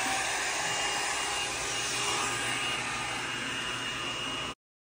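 GEM Pro hot air brush (a round-brush blow dryer) running: a steady rush of air with a thin high motor whine. The sound cuts off suddenly near the end.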